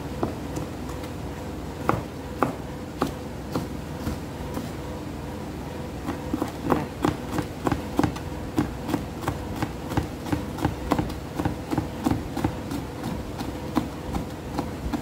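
Knife chopping tender jackfruit on a plastic cutting board: a few scattered taps at first, then a steady run of quick chops, about two to three a second, from about six seconds in.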